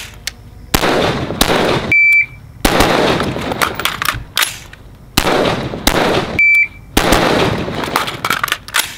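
Strings of rapid gunshots ringing out across an outdoor range. A shot timer's short high beep sounds twice, about two seconds in and again past six seconds.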